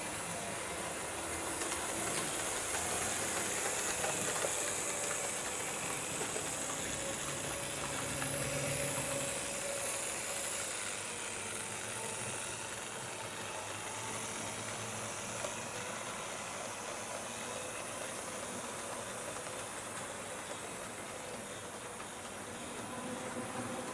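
HO scale model steam tank locomotive running on analog power: a faint electric-motor whine over a steady rolling rumble and hiss from the wheels on the track, swelling a little twice.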